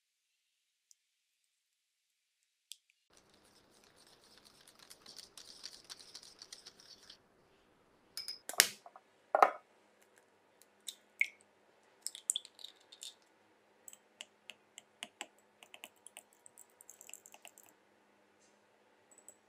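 A soft, hissy scraping of a silicone spatula mixing a creamy batter in a glass bowl. Then two sharp knocks, followed by a scattered run of light clicks and taps against glass as eggs are beaten in a drinking glass.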